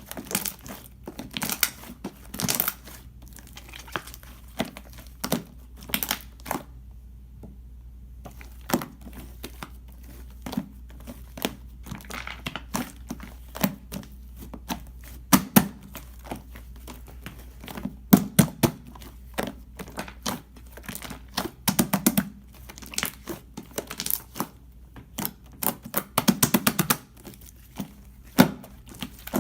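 Irregular crinkling and crackling clicks, as of something being handled or pressed, with a quick run of clicks near the end.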